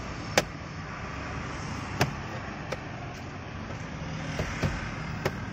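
Sharp plastic clicks as the head unit and dashboard fascia are pressed into the dash, four in all, the first two loudest. A steady low background rumble of vehicle and traffic noise runs under them.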